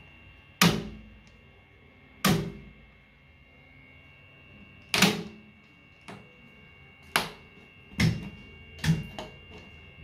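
Schneider Electric RCCB and miniature circuit breakers being tested, tripped and switched back on by hand: about six sharp clacks of the breaker toggles, a second or two apart, with a few lighter clicks near the end.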